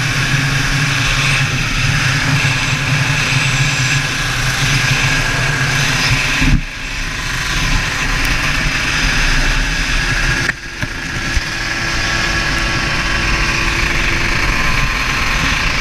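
TM KZ 125cc two-stroke shifter kart engine running under way, heard onboard with wind on the microphone. The engine note drops away briefly twice, about six and a half and ten and a half seconds in, then picks up again.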